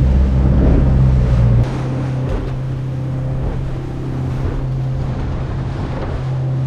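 A small boat's outboard motor running steadily under way, with wind and water rushing past the hull through the chop. The sound drops suddenly in level about a second and a half in, then carries on steady.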